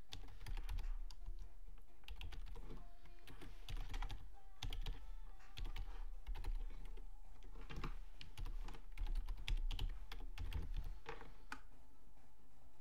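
Typing on a computer keyboard, irregular runs of keystrokes as a login email address and then a password are entered.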